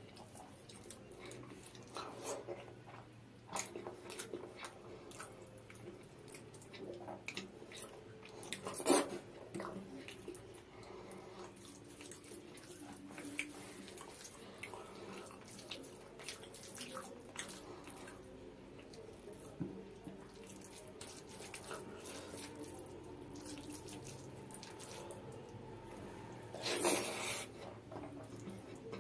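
Wet squelching and soft clicks of fingers mixing boiled rice with runny mung dal and mashed potato on a plate, with louder bursts about nine seconds in and near the end.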